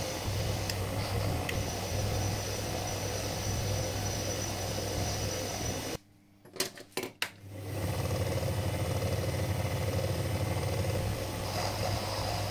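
Small metal lathe running with a steady motor hum. About six seconds in the sound stops abruptly for a second and a half, with a few sharp clicks, and then the lathe hum returns.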